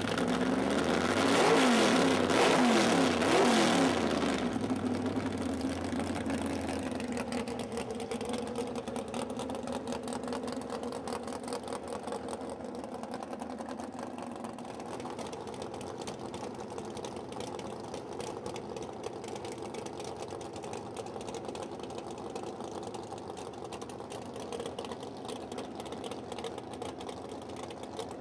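A 1974 El Camino Pro Street drag car's race engine, revved up and down several times in the first four seconds, then settling to a steady idle that fades slightly as the car sits at the starting line.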